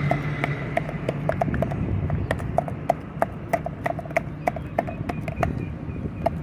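Wooden stick pounding and mashing wood apple pulp with spices in a steel tumbler: rhythmic knocks about three a second, many with a short metallic ring.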